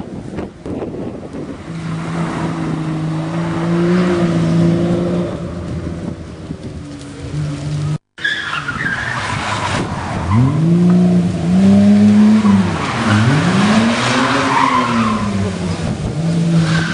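Rally car engines on a tarmac stage: first one engine holding a fairly steady note, then, after a sudden cut about halfway, another car's engine rising and falling in pitch several times as it revs and lifts off through the bends.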